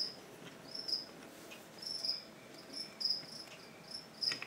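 A cricket chirping: short high trills at a steady pitch, repeating about two to three times a second. A faint click or two near the end.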